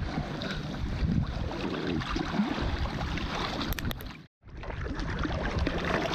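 Wind buffeting the microphone, a rough low hiss with no steady tone; the sound cuts out for a split second about four seconds in.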